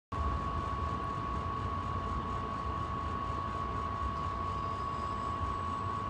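Outdoor air-conditioning condenser units running: a steady fan and motor hum with a constant high-pitched whine over it.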